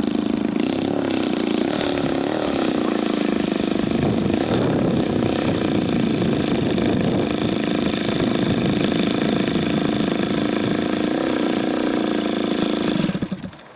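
Engine and propeller of a 1/3 scale Piper Super Cub model airplane running at speed in flight. The pitch wavers up and down as the plane manoeuvres, and the sound cuts off suddenly near the end.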